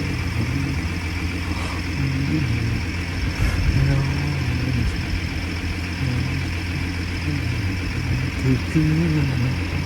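Steady low rumble of a car engine and road noise, with an indistinct voice over it.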